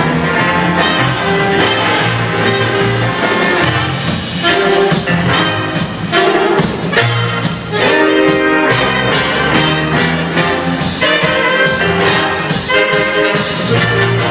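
Jazz big band playing live: a section of saxophones, trombones and trumpets over electric guitars and a drum kit.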